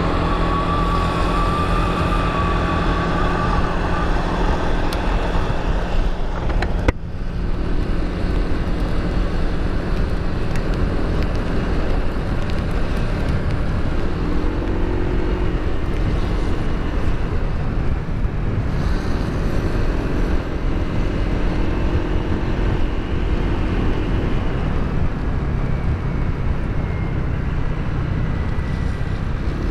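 Motorcycle engine running while riding, heard from a helmet-mounted camera over a steady rush of wind noise; the engine note rises and falls a little. A single sharp knock comes about seven seconds in.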